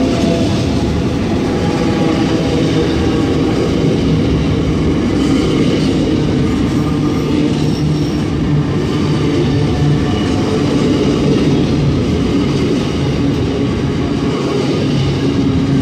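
Freight train of container wagons rolling past at close range: a steady, loud running noise of steel wheels on the rails that does not let up.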